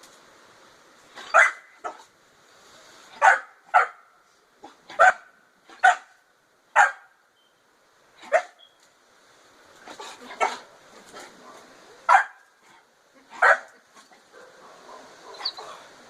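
Pit bull barking in single sharp barks, about a dozen of them at uneven intervals of one to two seconds.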